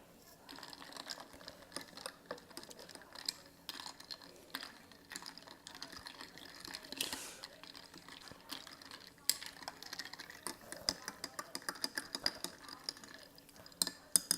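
Close-miked eating of buldak ramen noodles: a run of small wet chewing and mouth clicks, with a longer slurp about seven seconds in. A few sharp clinks of utensils against the bowl come near the end.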